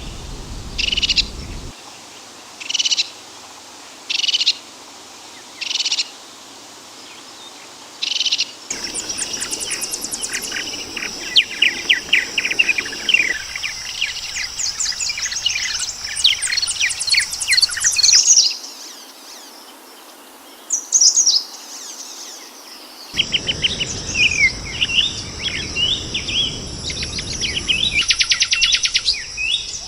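Wild birds calling: first a short call repeated about every one and a half seconds, then a dense chatter of rapid chirps and trills from several birds. The chatter pauses briefly partway through and returns.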